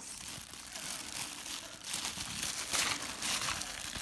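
Shiny plastic treat bag crinkling as a small child's hands pull and twist at it, a continuous crackling rustle with the loudest crinkles about three seconds in.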